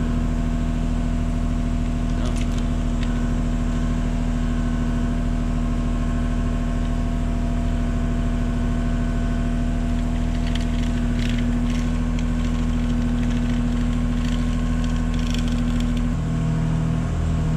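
An engine idling steadily, its note changing near the end, with a few light clicks now and then.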